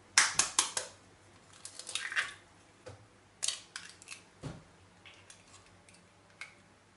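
Eggs cracked on the rim of a glass bowl: four quick, sharp taps at the start, then softer clicks and knocks of eggshells being broken open and handled while a yolk is separated from its white.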